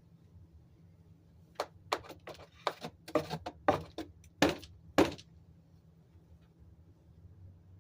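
A quick run of about ten knocks and clatters over some three and a half seconds, the last two the loudest, over a faint steady low hum.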